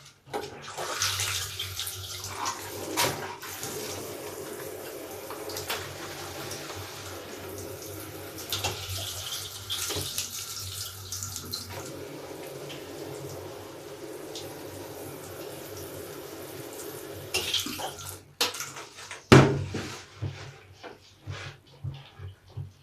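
Water running over a large soapy bath sponge as it is squeezed and kneaded. The water stops about eighteen seconds in, followed by a few knocks and one loud thump.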